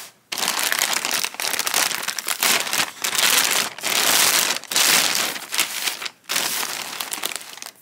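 Black plastic courier mailer bag being torn open and crinkled by hand: loud ripping and rustling plastic in a string of bursts with short pauses.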